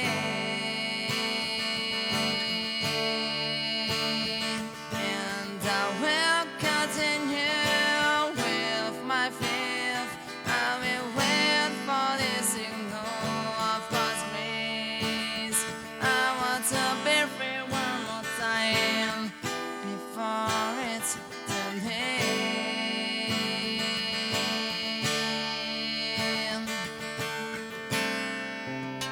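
Instrumental break in a song: acoustic guitar strumming sustained chords, with a wavering lead melody over it through the middle.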